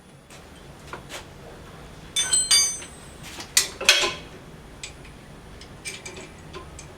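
Metal parts and tools clanking while a power hammer is being dismantled. Two ringing metal knocks come about two seconds in, then a louder clatter of metal on metal around four seconds, with light clicks and taps between.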